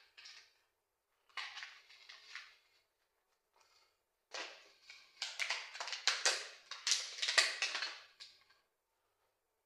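Pencil scratching across paper as lines of a diagram are drawn: a short stroke at the start, a group of strokes a little over a second in, then a longer, louder run of quick back-and-forth strokes from about four seconds in that stops shortly before the end.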